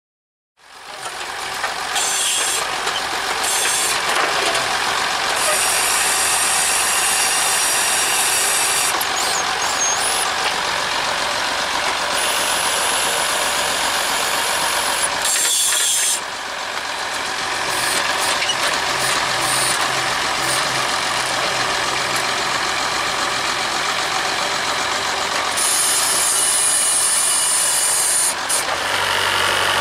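Tractor engine running steadily while it drives the hydraulics of a Troll T-274 tractor-mounted grapple loader lifting manure into a trailer: a loud, steady, hissy mechanical noise with a brief dip about halfway through.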